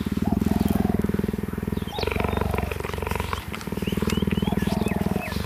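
Cheetah purring, a fast, continuous low rattle in long bouts with short breaks between breaths. Small high chirps sound faintly above it.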